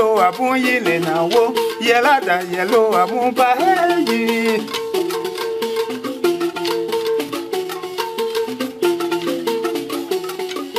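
A man singing with a wavering voice over a pitched instrument playing short stepwise phrases and a steady shaken rattle; the singing stops a little under halfway through, and the instrument and rattle play on.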